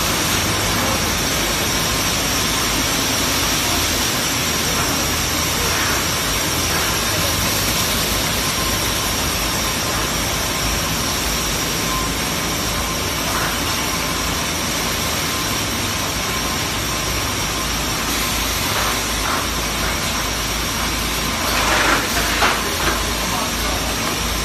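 Battery production-line machinery running steadily: a continuous mechanical din with hiss and a steady high whine, and a few louder clattering knocks near the end.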